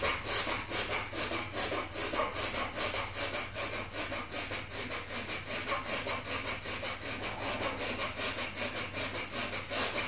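Rapid, forceful exhalations through the nose, mouth closed, in an even rhythm of about three breaths a second: a series of dragon-breath exhales, the stomach pumping each one out.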